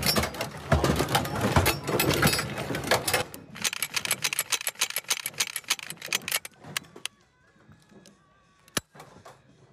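Metallic clatter of ammo cans and belted cartridges being handled, dense and loud for the first few seconds. It then thins to scattered metal clicks from a belt-fed machine gun being handled, with one sharp click near the end.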